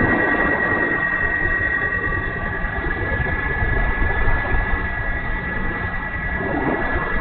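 E-flite Timber RC plane's brushless electric motor and propeller whining at a steady pitch in flight, with a low rumble underneath.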